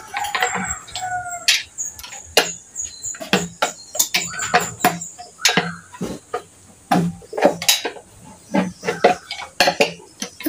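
Irregular metallic clicks, taps and knocks of tools and parts being handled on top of a diesel engine. A chicken clucks briefly about half a second in.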